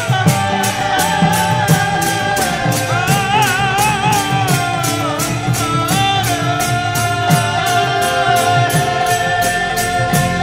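Kirtan music: a lead voice singing a wavering melody over hand-played barrel drums and an even, quick beat of hand cymbals, about three or four strokes a second.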